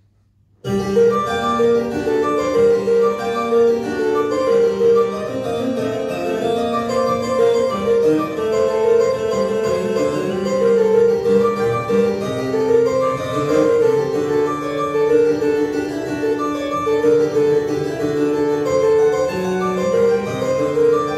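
Recorded keyboard accompaniment playing an introduction that starts abruptly about a second in, with a soprano saxophone joining near the end.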